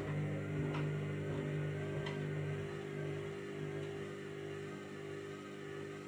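Candy front-loading washing machine's drum motor humming steadily as it turns a load of bedding at low speed, struggling to get up to spin speed for the interim spin. Two light knocks come in the first two seconds, and the hum eases gradually.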